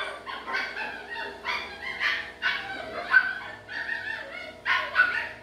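A dog barking repeatedly in short, sharp barks, about two a second.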